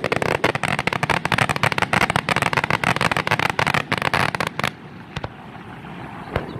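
Fireworks display: a dense, rapid barrage of bangs and crackles that stops suddenly about four and a half seconds in, followed by a couple of single reports.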